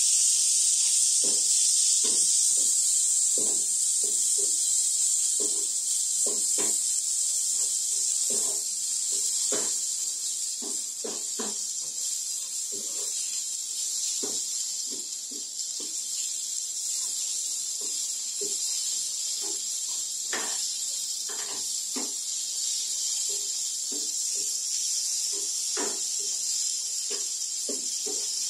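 Potato cubes frying in oil in a non-stick wok, a steady high sizzle, with a wooden spatula knocking and scraping against the pan at irregular moments as it stirs. The sizzle is strongest at first and eases slightly after about nine seconds.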